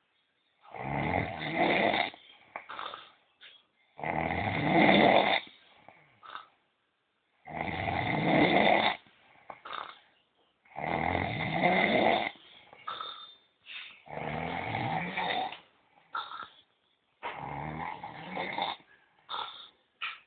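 A man snoring loudly in his sleep, long rasping snores about every three seconds with shorter, quieter sounds between them.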